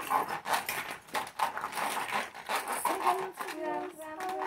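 Plastic toys clicking and clattering as they are handled, then a young child's voice from about three seconds in.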